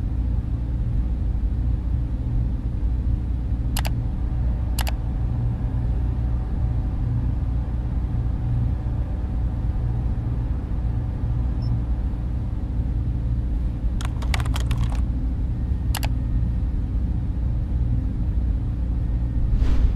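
A steady low rumbling drone, with a few sharp clicks: two about four and five seconds in, a quick flurry around fourteen seconds, another at sixteen, and a whoosh near the end.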